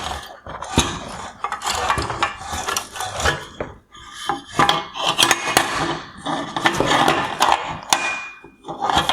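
Plastic headlight parts knocking, clicking and scraping as the projector bracket, its adjuster mount broken, is worked loose from the headlamp housing, with a brief squeak near the end.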